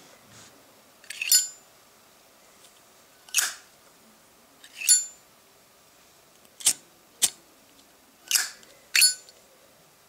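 A Zippo-style windproof lighter's hinged metal lid flicked open and snapped shut over and over: seven sharp metallic clicks, some with a brief high ringing ping.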